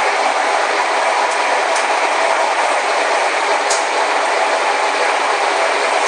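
Cable-hauled BART to OAK people-mover car running steadily along its elevated guideway, heard from inside the car: an even rolling and whirring noise with a few light clicks.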